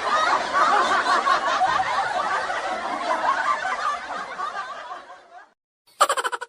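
A crowd laughing, like a canned laugh track, fading out about five seconds in. A second later a new sound effect starts suddenly, with quick pulses that die away.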